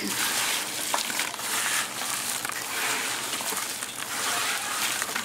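Crisp fried plantain chips rustling and crackling as gloved hands toss and mix them on a banana leaf, a continuous dry crunch that swells and fades unevenly with the hand movements.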